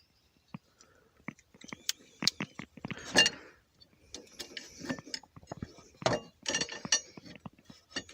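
Irregular metallic clicks and clinks of a Leatherman multi-tool being handled and worked, with a short scrape about three seconds in.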